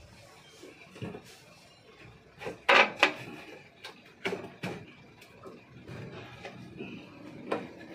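Wooden knocks and clatters from the planks of a wooden crate being handled and pulled open by hand, irregular, the loudest a quick pair about three seconds in.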